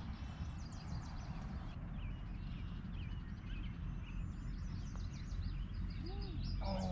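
Wind rumbling on the microphone with birds chirping and calling, many short quick chirps throughout and a few lower arching calls near the end.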